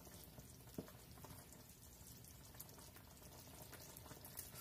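Near silence: creamy soup simmering faintly in a stainless pan, with a light tap of a wooden spoon against the pan about a second in.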